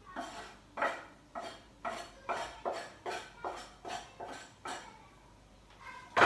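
Knife scraping and tapping chopped onion off a wooden cutting board into a pot, in about eleven quick strokes at roughly two a second. The strokes stop about a second and a half before the end, and a small knock follows near the end.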